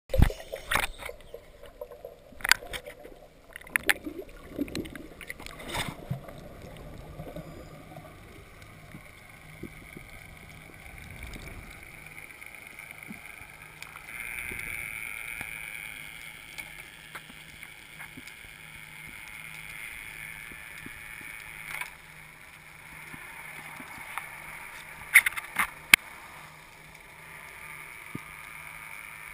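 Underwater ambience picked up through a diving camera's housing: a cluster of sharp clicks and knocks in the first few seconds, then a steady hiss with a faint low hum underneath, and a couple more sharp clicks near the end.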